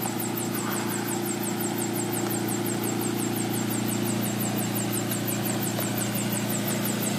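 Helisport CH-7 Kompress ultralight helicopter running on the ground with its main rotor turning, a steady, even engine and rotor hum that holds at one speed.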